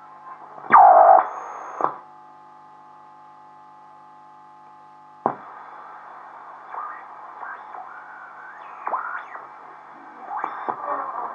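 VE301W Volksempfänger regenerative receiver's loudspeaker while it is being tuned. About a second in, a loud whistle glides down in pitch as the tuning sweeps past a carrier. A steady hum of several tones follows for a few seconds, then muffled, noisy fragments of broadcast sound drift in and out.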